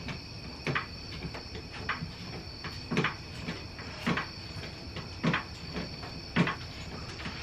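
Floor jack being pumped to lift the car: a sharp click with each stroke, about once a second, with fainter ticks between, over a faint steady high-pitched tone.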